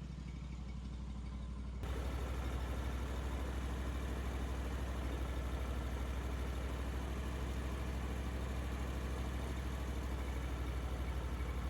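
Engine running steadily with a low hum. About two seconds in it gets louder as a rushing noise joins across the whole range and holds steady.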